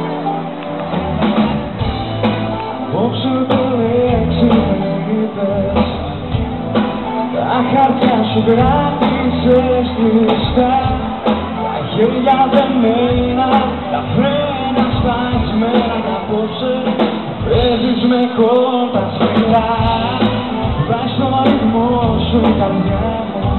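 Live band playing a Greek popular song, with a steady beat under a melody line and singing.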